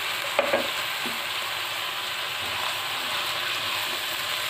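Sliced cabbage, green pepper, mushrooms and sweet corn sizzling in hot oil in a kadhai (wok) as a spatula stirs them, a steady hiss with a couple of light knocks about half a second in.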